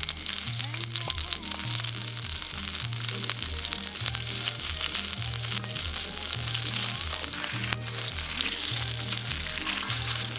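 Food sizzling and crackling as it fries in a hot pan, a steady dense spatter. Background music with a regular stepping bass line plays underneath.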